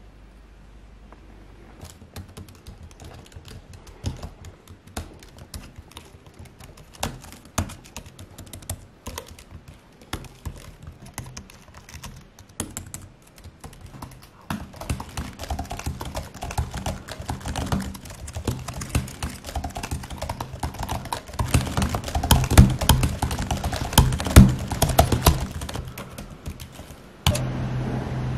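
Typing on a computer keyboard: irregular keystrokes begin a couple of seconds in and grow faster and louder, becoming a rapid clatter before stopping abruptly near the end, when a steady low hum takes over.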